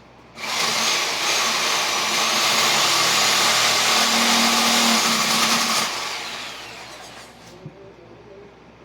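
Reciprocating saw (Sawzall) running and cutting into wood for about five seconds, then winding down.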